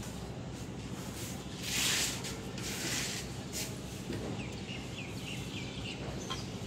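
Hand handling of an electric motor's cast end shield on a wooden workbench: two short scraping rustles about two and three seconds in, over a steady low hum, with faint chirps later on.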